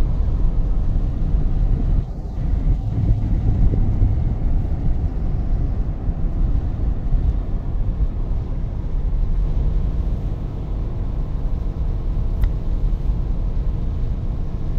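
Steady low road rumble of a moving car heard from inside the cabin.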